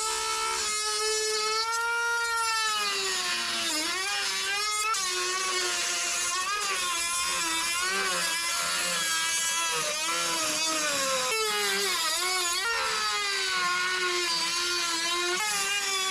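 High-speed handheld power tool cutting into a plastic car bumper: a steady whine whose pitch sags and wavers each time the tool bites under load, rising back briefly when it runs free.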